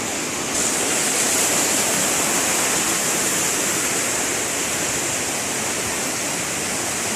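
Fast-flowing river water rushing steadily, with a hiss that grows a little brighter about half a second in.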